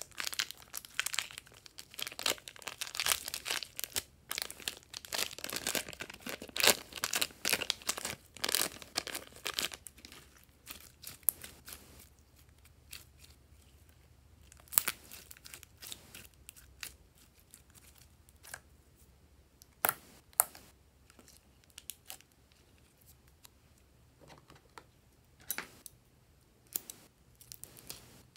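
Plastic piping bag crinkling and crackling as thick slime is squeezed out of it, dense for about the first ten seconds. After that come sparser, quieter clicks and pops as the sticky slime is stretched and handled.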